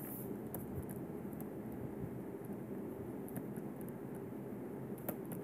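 Faint steady room hiss with a few light ticks from a pen writing on a tablet.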